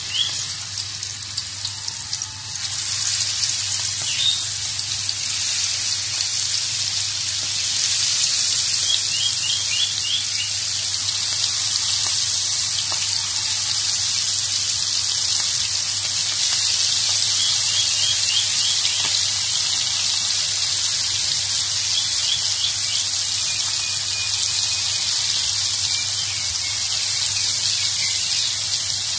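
Marinated prawns deep-frying in hot oil: a steady, loud sizzle that grows louder over the first few seconds as more prawns go into the oil.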